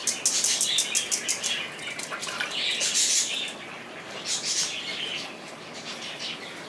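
A spoon scraping and tapping in a fine mesh sieve as oat water (agua de avena) is strained into a pitcher. A quick string of scrapes comes in the first two seconds, then softer rubbing scrapes.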